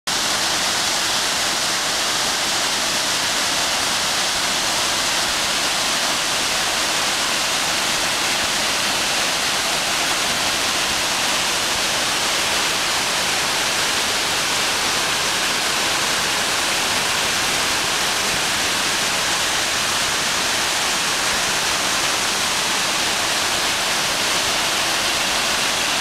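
Large waterfall cascading down a steep rock face: a loud, steady rush of falling water, hissy and unbroken throughout.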